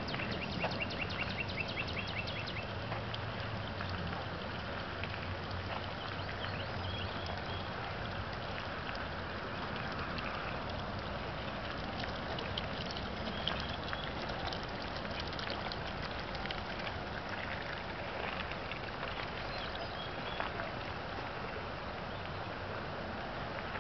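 Footsteps crunching on a gravel path over a steady outdoor hiss, with short high chirps now and then, a quick run of them about the first two seconds.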